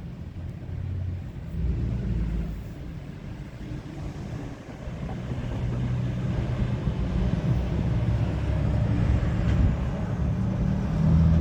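Freight cars of a long mixed freight train rolling past: a steady low rumble of wheels on rail that grows gradually louder.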